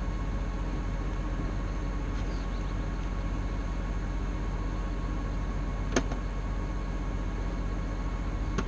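Engine running steadily with a low, even hum. A sharp click comes about six seconds in, and a smaller one near the end.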